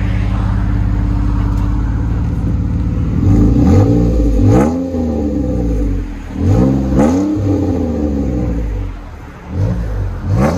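2015 Jeep Wrangler's 3.6-litre V6 heard at the tailpipe of a muffler-deleted 2¼-inch dual exhaust with a MagnaFlow glass pack and loop delete. It idles steadily, then is revved in short blips, the pitch sweeping up and back down each time, with a last rev starting near the end.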